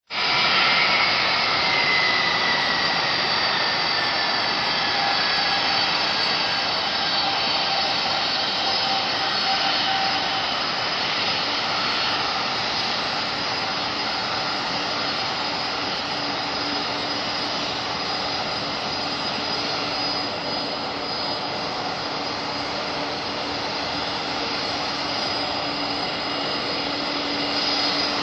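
Four jet engines of a Boeing 747-400 freighter running at taxi power as it taxis: a steady whine with a high tone sliding down over the first few seconds and a low hum coming in about halfway through.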